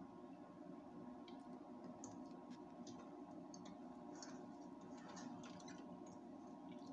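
Faint clicks and light scrapes of a spatula stirring a thick cheese sauce in a pan, scattered and irregular, over a steady low hum.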